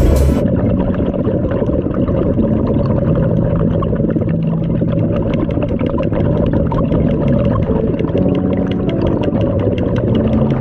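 Steady engine drone from a boat, heard muffled through the water by an underwater camera, with faint crackling clicks over it.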